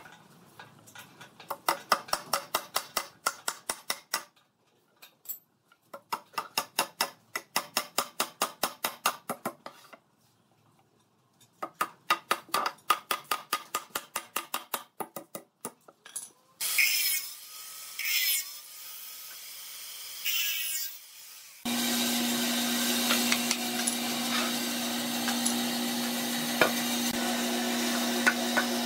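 Hammer driving nails into a wooden board, in three runs of rapid blows about four or five a second with short pauses between nails. A few scraping noises follow, then a steady hum sets in about 22 seconds in, with a few light knocks over it.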